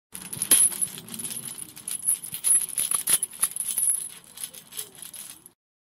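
Metal jingling and clicking, with many sharp clicks over a high ringing shimmer, in a short sound-effect clip that starts and stops abruptly.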